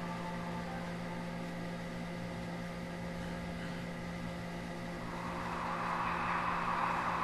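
Film soundtrack drone: a steady low hum with many held tones. About five seconds in it is joined by a swelling noisy rush.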